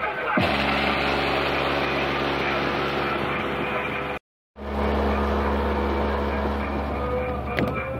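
Car sound system playing loud with steady deep bass notes; the sound drops out for a split second about four seconds in.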